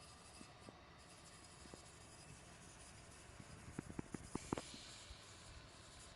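Near silence with faint scratchy rubbing, and a quick run of light clicks about four seconds in.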